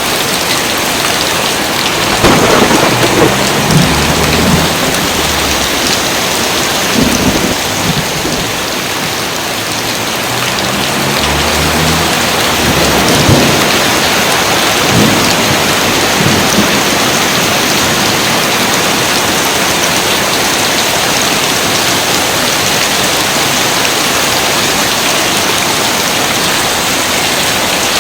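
Steady rain pouring down with rolls of thunder. Low rumbles come about two seconds in, again around seven seconds, and longest from about eleven to sixteen seconds, then ease off under the rain.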